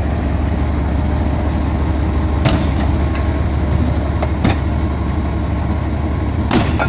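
Diesel locomotive engine running at a steady idle with a deep, even rumble. Three short sharp knocks come about two and a half, four and a half and six and a half seconds in.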